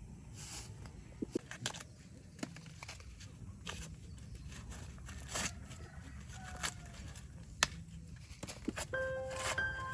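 Scattered sharp clicks and light rustling, like handling, over a low steady hum. Soft chiming music comes in near the end.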